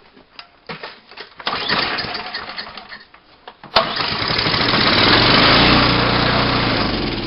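Gasoline snowblower engine being pull-started. A first pull about a second and a half in gives a short burst; a second pull makes the engine fire and run for a few seconds before it fades out. The engine is hard-starting.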